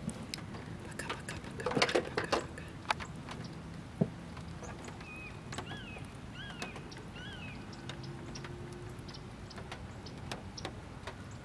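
Rain falling, with individual drops ticking irregularly over a steady hiss. Around the middle a bird gives four short rising-and-falling chirps.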